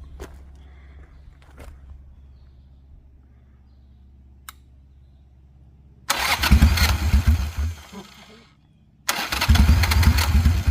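Harley-Davidson Sportster 883's air-cooled V-twin being started: it fires about six seconds in, runs for about two seconds and dies away, then starts again about nine seconds in and keeps running loudly. A single sharp click comes a second or so before the first start.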